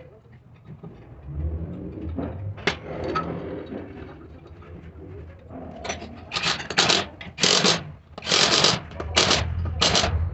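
Short, loud blasts of compressed air hissing, about six in a row in the second half, after some low clatter of parts being handled on an air brake dryer.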